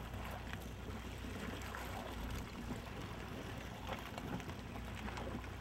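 A boat's engine running with a steady low hum, with water washing along the hull as the boat moves through floating ice, and a few faint scattered knocks.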